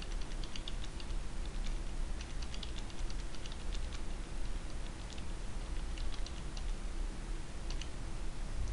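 Computer keyboard typing, faint: short runs of key clicks with pauses between them, over a low steady hum.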